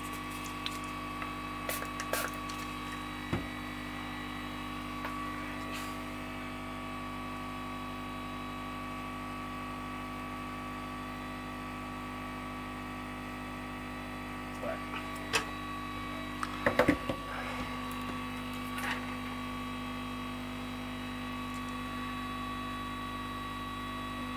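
Steady whirring hum of a hot-air rework gun and bench equipment running while the solder under a new USB-C connector is reflowed. A few light clicks about three seconds in and a short cluster of taps around the middle.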